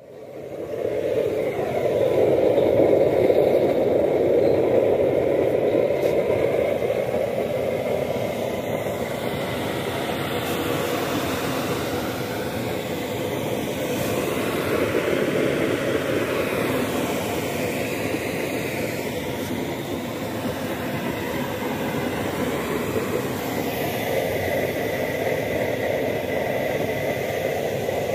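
Waste-oil burner stove running: a steady rushing noise of its battery-powered blower forcing air into the burning old engine oil and vegetable oil. It swells up over the first couple of seconds, then holds even.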